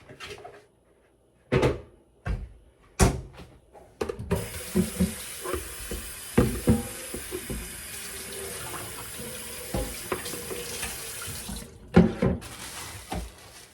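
Kitchen tap running into a sink for about eight seconds, with knocks and clatter of things handled in the sink. More knocks come before the water starts and after it stops.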